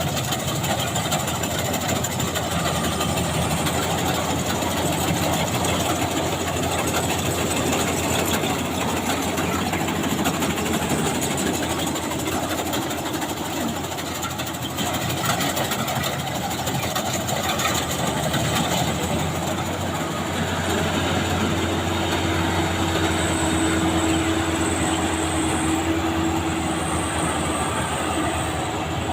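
Maxxi Bimo 102 combine harvester running steadily while cutting rice, a dense continuous machine clatter. A steady hum rises above it for several seconds near the end.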